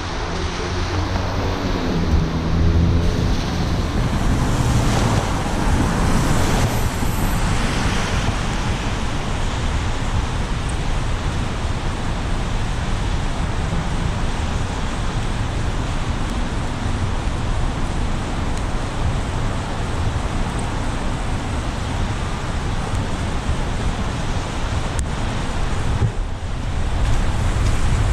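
Car driving on rain-wet city streets: steady tyre hiss and road noise over a low engine rumble, with a falling engine note in the first few seconds.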